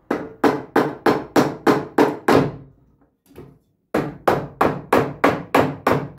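Hammer tapping a laminated wooden drum along an electric motor's shaft to seat it on the glue: quick even knocks, about three a second. A run of about eight knocks, a pause of about a second and a half, then another steady run.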